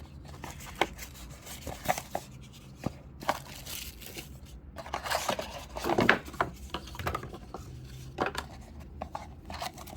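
Paper and plastic packaging from a fishing-reel box being handled and unpacked: irregular rustling and crinkling with light knocks, busiest about five to six seconds in.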